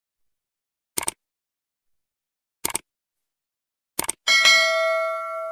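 Computer-style sound effects: three quick mouse clicks, each a double tick, about a second and a half apart. Right after the third comes a bright notification-bell ding, the loudest sound, which rings on with several tones and fades.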